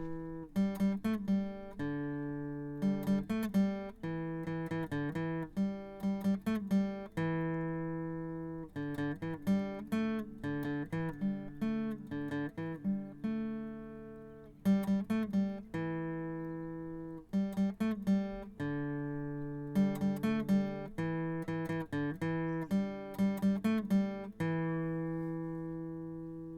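Outro music: acoustic guitar playing plucked notes and strummed chords that ring out and fade, in a phrase that repeats every few seconds.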